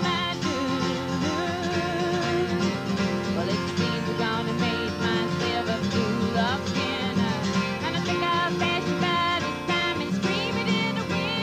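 Live acoustic country music: a steel-string acoustic guitar strummed steadily, with a wavering melody line over it.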